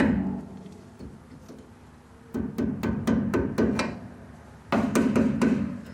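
Quick hammer blows on metal in two short runs, the first about two seconds in and the second near the end, knocking at a stuck part of the Suzuki Samurai front steering knuckle that will not come out.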